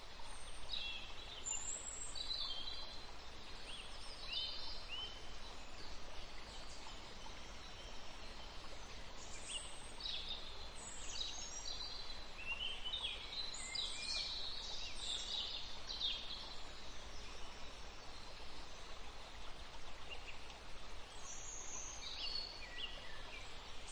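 Woodland ambience: small birds chirping and calling at irregular intervals over a faint steady hiss, with the calls busiest in the middle and near the end.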